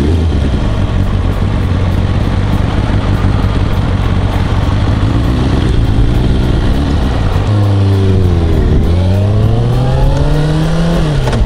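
Kawasaki ZZR400's inline-four engine running at a steady pitch. About three quarters of the way through its pitch dips, then climbs as the bike accelerates, dropping again near the end.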